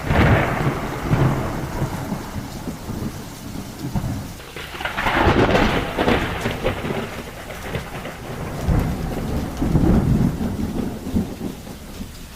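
Hurricane storm noise: steady rain with deep rumbling swells that build and fade, strongest near the start and again about five and ten seconds in.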